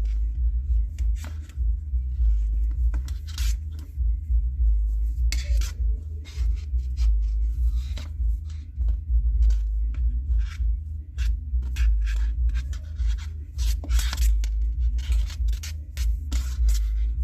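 Nylon paracord rubbing and scraping through the fingers as snake knots are looped and pulled tight, in many short, irregular scratchy strokes. Under them runs a loud, steady low drone.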